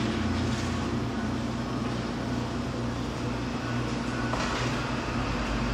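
Kitchen extractor hood and fan running with a steady rumble and hum, with a brief scraping noise about four seconds in as the pizza oven is worked.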